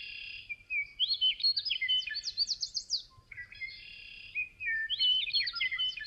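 Western meadowlark singing: two songs of clear whistled notes, each ending in a quick run of falling notes.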